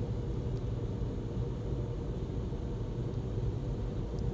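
Steady low rumble heard inside a car's cabin: a Nissan idling in neutral at a tunnel car wash, with the wash machinery running outside.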